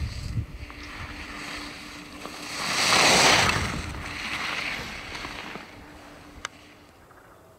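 Skis carving on hard-packed snow as a skier passes close by: a swishing hiss that swells to a peak about three seconds in, with a smaller swell a second later, then fades. Wind rumbles on the microphone in the first second, and there is one sharp click near the end.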